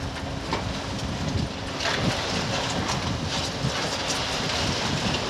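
Renault Trucks hook-lift truck's diesel engine running under hydraulic load, with a steady hum, as the roll-off container is tipped higher. The load of fill rumbles out of its tail, and wind hisses on the microphone.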